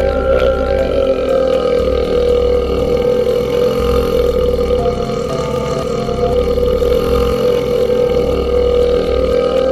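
A man's long, unbroken burp, loud and steady, held through the whole stretch without a pause.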